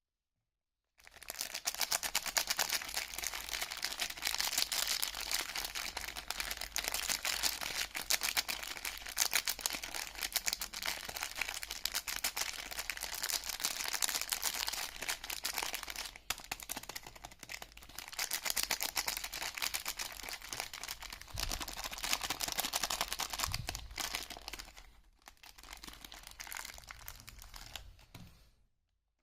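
Soap packaging crinkling and tearing as it is unwrapped by hand: a dense run of fine crackles that dips briefly a few times and stops just before the end.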